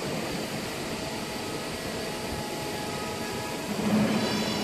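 Hydraulic pump of a 250-ton CNC press brake running, a steady mechanical hum with faint high tones over it. Near the end a lower hum swells briefly.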